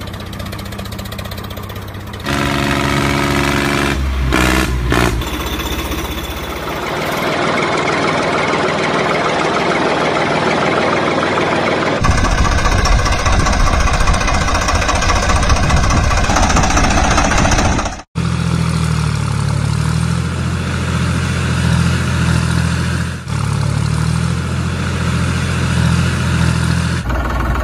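Tractor engine sounds, running and revving, that change abruptly several times as one clip cuts to the next, with a brief dropout partway through.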